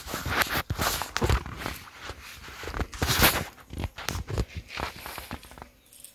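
Irregular footsteps rustling through grass close to the microphone, stopping shortly before the end.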